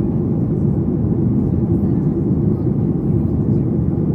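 Steady low rumble inside the cabin of a Boeing 737 MAX 8 airliner in flight: engine and airflow noise at an even level.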